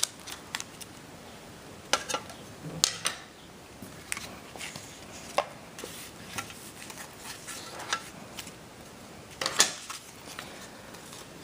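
Irregular clicks, taps and light rustles of a replacement iPhone 4 back cover and its packaging being handled and unwrapped, with the loudest tap about nine and a half seconds in.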